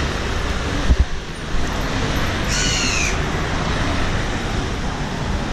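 Street traffic running steadily, with a car passing close, and a crow cawing once about two and a half seconds in.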